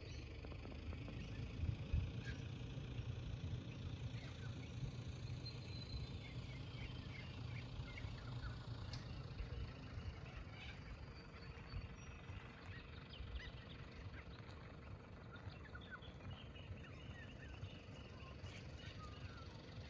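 Faint outdoor ambience: a low rumble under scattered short bird chirps and calls.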